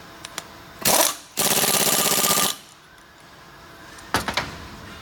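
Impact wrench tightening the nut onto the piston rod: a short spin about a second in, then about a second of rapid even hammering. A few light clicks follow near the end.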